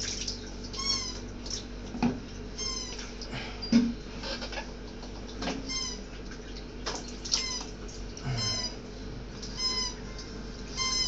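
A cat meowing over and over: short, high calls about once a second. A few soft knocks come in between, the loudest about four seconds in.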